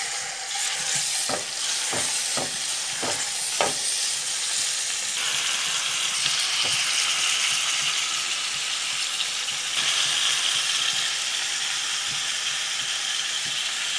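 Raw chicken pieces sizzling as they are laid into hot sunflower oil in a frying pan. The sizzle is steady and grows stronger about five seconds in and again near ten seconds, with several short knocks in the first four seconds as the pieces go down.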